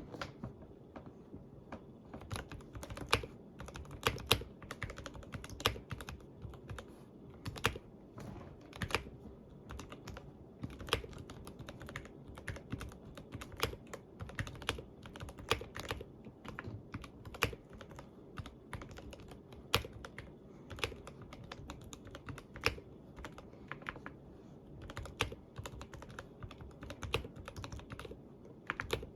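Computer keyboard being typed on steadily, with irregular key clicks several times a second and a few louder, sharper strokes among them.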